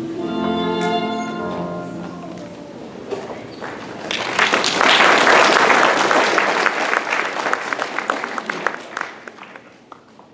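A held musical chord ends in the first two seconds. About four seconds in, audience applause starts and fades away near the end.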